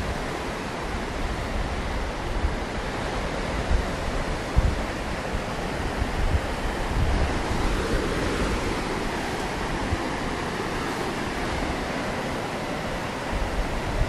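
Rough surf breaking on a rocky shore: a continuous rush of waves that swells for a few seconds about halfway through, with wind rumbling low on the microphone.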